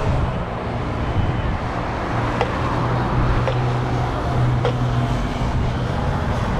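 Road traffic: vehicle engines running on a busy road, with one engine's low hum holding steady through the middle.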